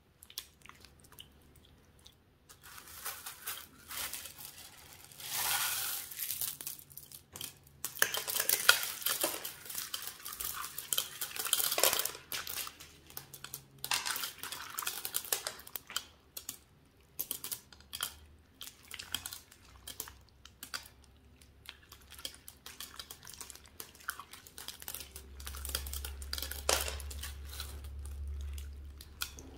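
Clear slime kneaded and stretched through a dish full of M&M's: the hard candy shells click and clatter against each other and the dish, while the sticky slime crackles and tears. The sound comes in irregular spells, loudest a few seconds in and again for several seconds in the middle, with a low hum near the end.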